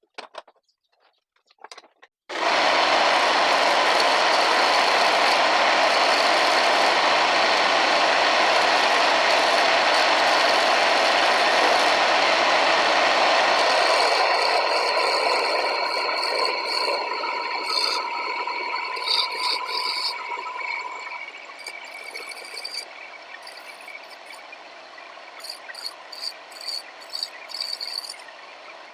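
Homemade wood lathe running with a tool or sandpaper working the spinning wood. The loud, steady noise starts abruptly a couple of seconds in, holds, then fades gradually through the second half, with light clicks and taps near the end.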